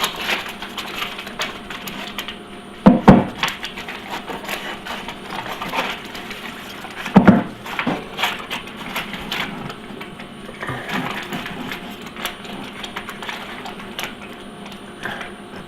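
Aluminized foil tape being unrolled and handled around a vent pipe: crinkling and rustling with small clicks, and two louder knocks about three and seven seconds in.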